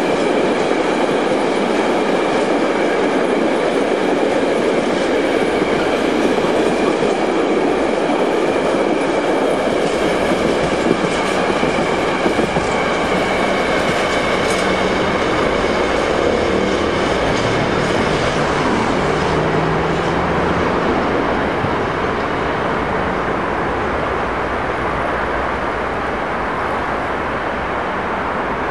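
Container freight train rolling past close by: a steady rumble of wagon wheels on the rails with a steady high tone over it, growing fainter over the last several seconds as the end of the train passes and draws away.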